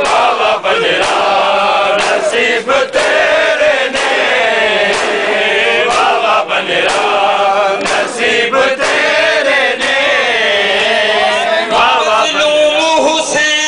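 Crowd of men chanting a noha in unison, with sharp slaps of hands on bare chests (matam) in time with the chant, roughly two a second. Near the end a steady held tone enters.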